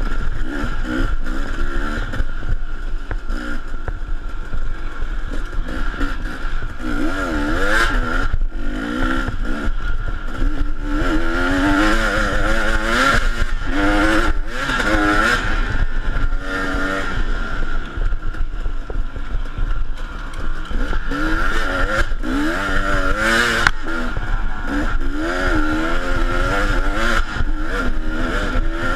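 KTM dirt bike engine revving up and down as the rider works the throttle through the gears, close on the bike, with occasional knocks and rattles over the bumpy trail.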